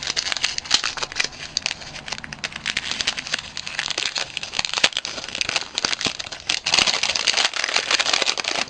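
Paper wrapping crinkling and rustling as a small wrapped package is unwrapped by hand, with a steady run of small crackles throughout.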